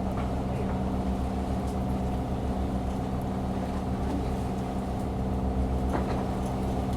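Fishing boat's engine running steadily, an even low drone.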